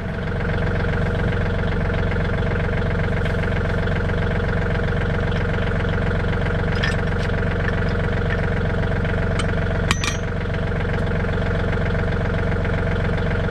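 John Deere 3320 compact tractor's diesel engine idling steadily, with a couple of sharp clicks partway through.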